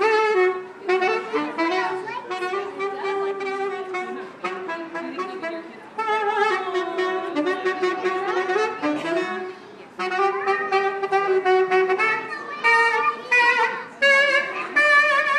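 Saxophone played live: a melody in several phrases with short breaks between them, ending with held notes played with vibrato.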